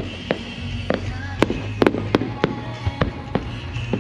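Fireworks going off in about ten sharp, irregular cracks and bangs over music playing across the display grounds.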